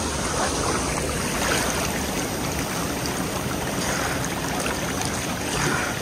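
Creek water rushing and gurgling right at the microphone, a steady noise with small splashes, from a limestone creek running toward a waterfall.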